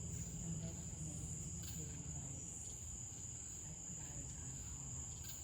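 Crickets at night, a steady unbroken high-pitched trill, with a low rumble underneath.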